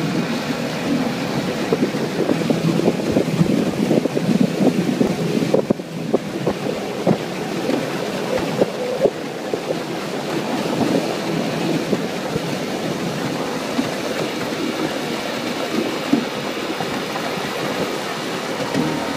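Small aluminum boat under way: water slapping irregularly against the hull, mixed with wind buffeting the microphone.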